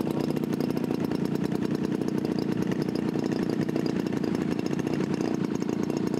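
Radio-controlled model airplane engine idling steadily with a rapid, even firing beat.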